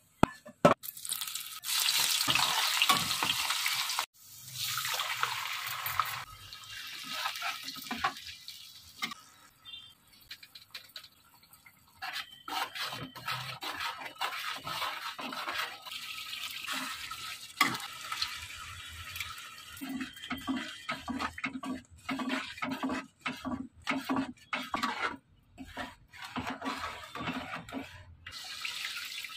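Onion-masala paste frying in hot oil in a kadai, sizzling loudly at first, while a metal spatula stirs and scrapes the pan in repeated strokes.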